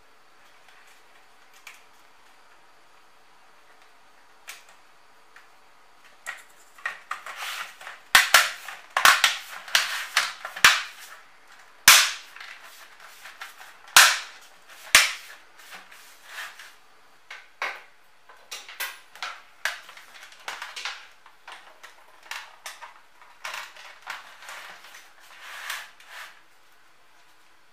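Plastic clips of a Samsung LCD monitor's front bezel snapping into place as the bezel is pressed back onto the panel. The sharp plastic clicks and snaps start about six seconds in, come thickest in the middle, and thin out near the end.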